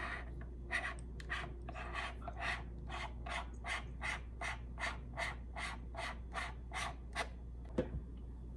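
Hands working at a camera lens: a steady series of short scratchy strokes, about three a second, followed by a single knock near the end.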